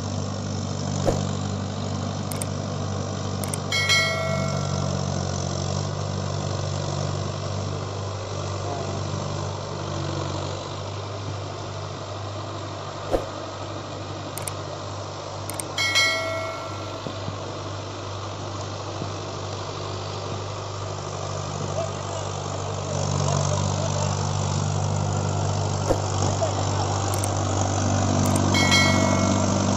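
Mahindra Arjun Ultra 555 DI tractor's four-cylinder diesel engine running steadily under load, pulling an implement through flooded paddy mud; it grows a little louder near the end. Three short chimes, each preceded a few seconds earlier by a faint click, sit over the engine about twelve seconds apart, the sound of a subscribe-button animation.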